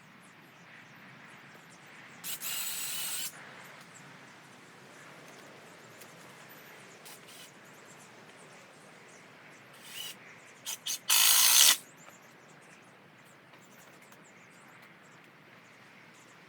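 Cordless drill running in two short bursts of about a second each, boring into or driving screws into timber; the second burst follows a few quick taps of the trigger.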